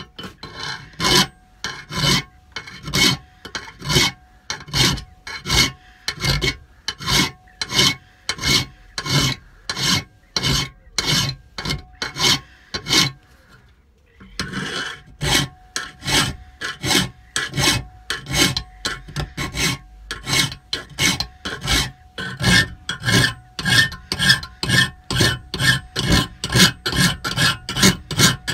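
A hand file rasping back and forth across a polished metal tube in even strokes, about one a second, then, after a short pause about halfway through, faster at about two a second. A faint steady tone runs under the strokes.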